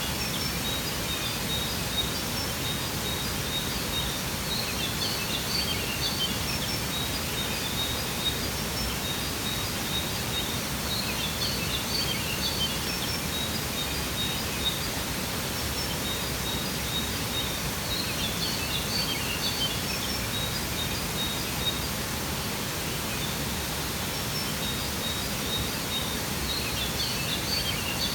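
Steady rushing of a waterfall, with birds chirping in short clusters of high notes every few seconds over it.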